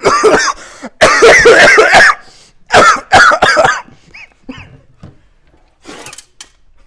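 A man's loud, hacking coughing fit: a run of harsh, voiced coughs through the first four seconds, then a few fainter coughs near the end.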